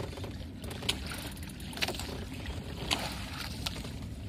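Low steady rumble aboard a small outrigger fishing boat, with four short sharp clicks or knocks about a second apart while the angler works a jigging reel.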